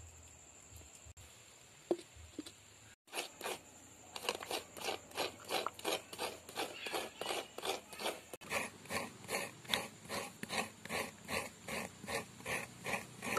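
Coconut being scraped by hand on a coconut scraper blade: rhythmic rasping strokes, about two a second, with the shavings falling into a plastic bowl. The strokes start about three seconds in.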